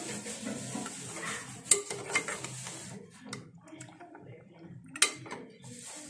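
Metal spoon stirring mutton curry in a metal pot, scraping and clinking against the pot's sides, with a few sharper clinks, the loudest about two seconds in and again about five seconds in.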